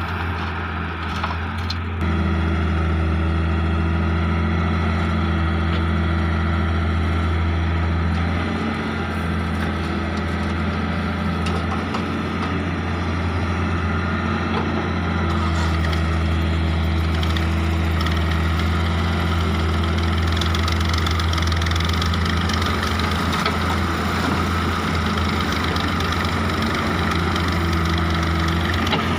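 Hitachi excavator's diesel engine running steadily. It picks up about two seconds in, eases off for several seconds in the middle and then comes back up as the machine works.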